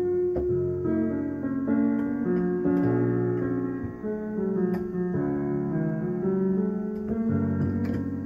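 Piano music: sustained notes and chords that change every second or so.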